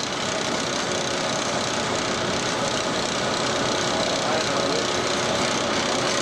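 Rotary bottling tri-block (rinser, filler and capper) running in production, bottles fed through its timing screw: a steady dense mechanical clatter with a constant hum underneath.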